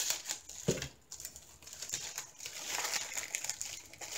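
Plastic wrapping crinkling as it is snipped with scissors and pulled open by hand, with one soft knock under a second in.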